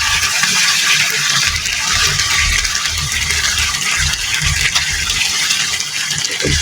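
Chicken curry cooking in the pan with a steady hiss, as coconut cream is poured in, with faint low knocks from handling.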